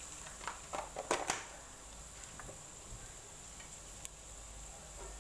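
Minced garlic frying in a little hot oil in a stainless steel stockpot, a faint steady sizzle. A few clinks of a metal ladle against the pot in the first second or so.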